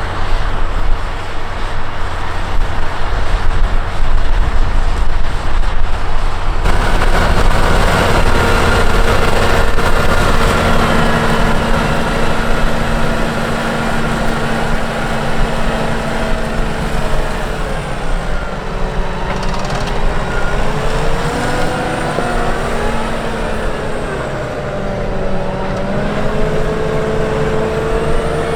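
Case IH Puma 240 CVX tractor's six-cylinder diesel engine running steadily while pulling a plough. About a third of the way in the sound changes abruptly. Later the engine note rises and falls several times.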